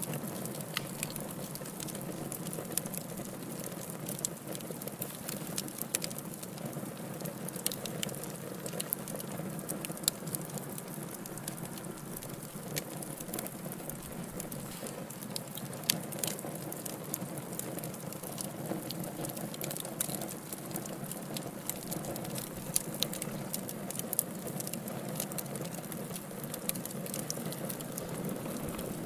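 Fire burning in a fireplace: a steady low rush of flames with frequent irregular crackles and snaps, and a few louder pops.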